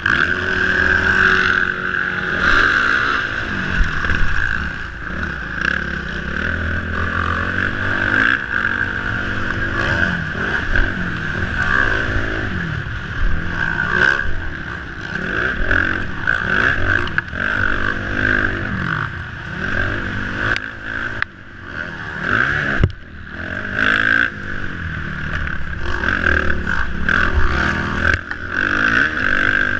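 Motocross dirt bike engine revving up and falling back again and again through the gears as the bike is ridden hard, heard from a helmet-mounted camera over a steady rushing noise, with occasional clatters.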